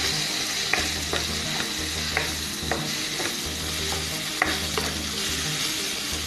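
Onion-tomato masala with ground spices sizzling in oil in a non-stick kadai, stirred and scraped with a wooden spatula, with irregular clicks of the spatula on the pan. The spices are being fried into the onion-tomato base.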